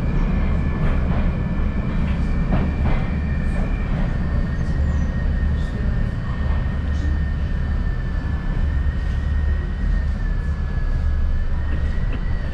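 Moscow metro 81-775/776/777 train heard from inside the car as it runs slowly into a station: a steady low rumble of wheels on rail under a high electric whine from the traction drive, with a few faint clicks in the first few seconds.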